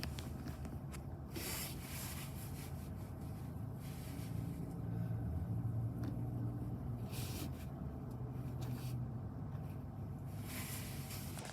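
A low steady hum, a little louder around the middle, with a few brief rustles.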